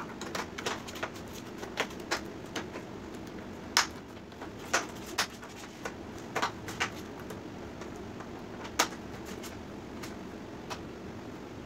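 Thin plastic diffuser sheets in an LED TV backlight crackling and clicking as they are flexed and pressed into the frame. The snaps come irregularly, a dozen or so, with the sharpest about four and five seconds in and again near nine seconds.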